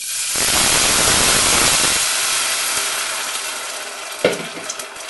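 Water poured from a jug into a pot of hot fried rice and spices, splashing loudly for about two seconds, then a hiss of sizzling that slowly fades. A single short knock about four seconds in.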